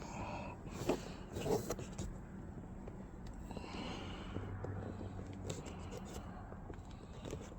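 Faint handling noises of test leads and wiring being clipped on, with a few light clicks and rustles about a second in, over a low steady hum.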